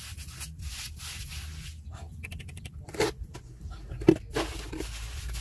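Fingers scraping and digging through wet sandy soil in irregular strokes, with a sharp thump about four seconds in.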